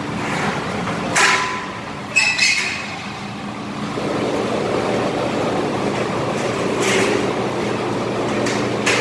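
Sharp metal clanks and knocks from a large centrifugal blower housing being worked into place on steel scaffolding, about a second in, around two seconds and twice near the end. Under them runs a steady low hum that grows louder about four seconds in.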